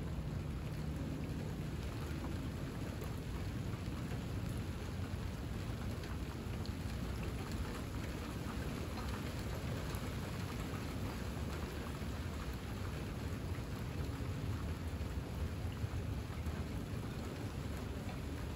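Steady rain falling on a clay tile roof and the grass beyond, an even, unbroken hiss of drops.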